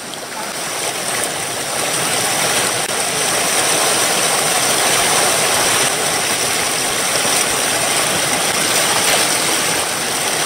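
Whitewater rushing through a small river rapid close by: a steady, even roar of water with no break.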